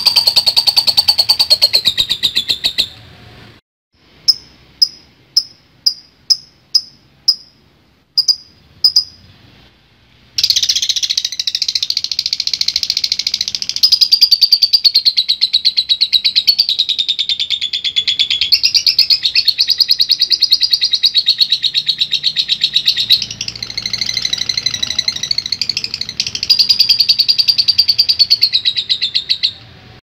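Lovebird chattering in a rapid, dry trill (the long 'ngekek'). About three seconds in it breaks off into a string of about nine separate sharp ticks at roughly two a second, then starts one long unbroken trill lasting nearly twenty seconds.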